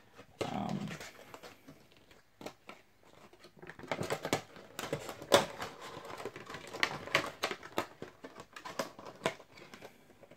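Hands handling cardboard Funko Pop figure boxes and a clear plastic bag: a run of light taps, clicks and crinkles, busiest in the second half.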